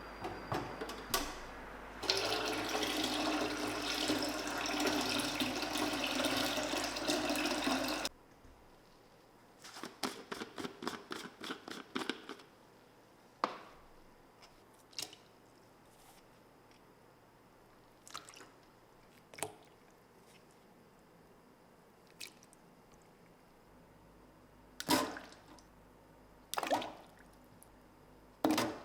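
Water running, as from a tap, for about six seconds and then stopping abruptly, followed by a quick run of small clicks and later a few single sharp knocks of hard objects being handled.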